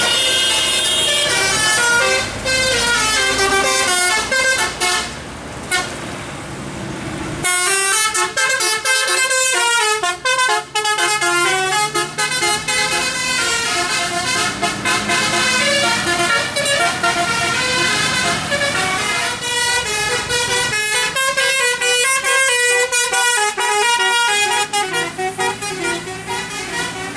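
Bus basuri "telolet" multi-tone horn playing a fast melody of stepping notes, breaking off for a couple of seconds about five seconds in, then starting up again and playing on.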